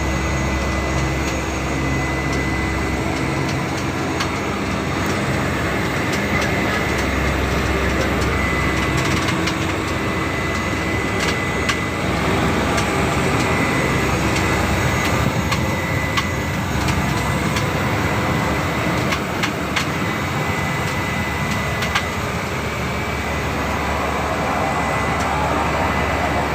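Steady engine drone of a small pioneer aircraft, heard from inside the cabin, with a constant low rumble and a thin steady whine.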